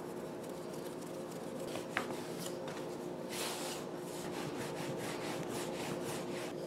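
Hands pressing a ball of dough flat, then a wooden rolling pin rolling it out on a plastic cutting board: soft rubbing, brushing strokes with a few light clicks, over a steady low hum.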